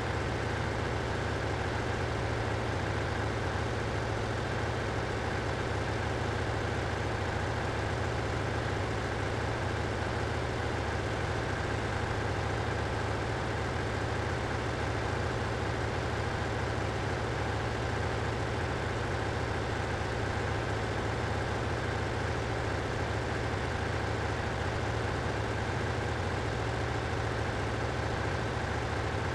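Ship's engine-room machinery running steadily: a constant low hum with a hiss above it.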